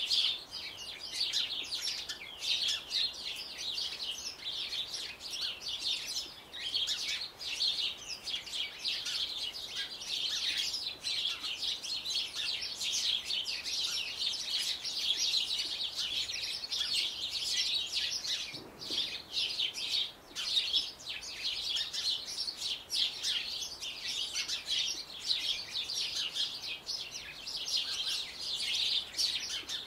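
Small songbirds chirping and twittering in a dense, unbroken stream of short high-pitched notes.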